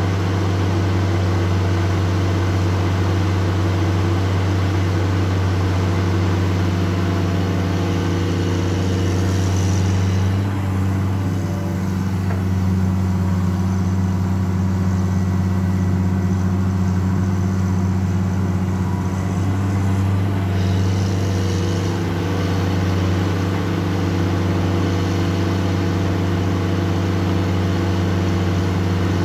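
Caterpillar 336D L ME excavator's diesel engine running steadily under working load, a deep even hum. A higher hiss from the machine fades away for about ten seconds in the middle, while the upper structure is swung round to dig, then comes back.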